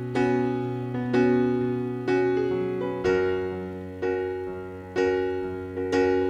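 Background piano music: a chord struck about once a second, each one ringing out and fading before the next.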